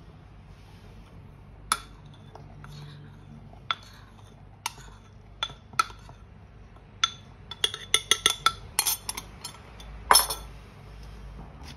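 Scattered clinks and knocks of a ceramic bowl and metal spoon against a plastic flour sifter as flour is poured into it, with a quick run of clinks about eight seconds in and a louder knock about ten seconds in.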